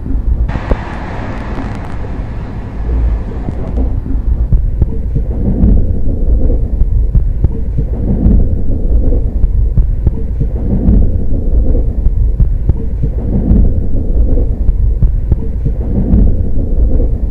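Train running at speed: a heavy low rumble with a hissier rush over the first few seconds, then a slow throb about every two and a half seconds.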